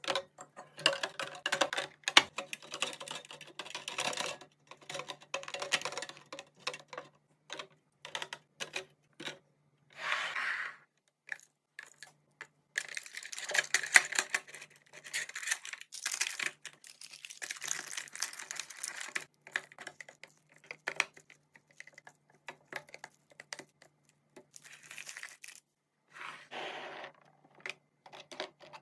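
Food packaging and storage containers being handled during a restock: quick clicks and taps of plastic lids and containers, with short crinkling and tearing rustles of wrappers and bags.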